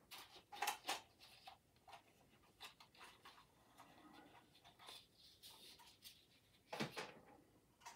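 Faint handling of a small cardboard box and its packaging: scattered scrapes, rustles and light clicks, the strongest within the first second and again about seven seconds in.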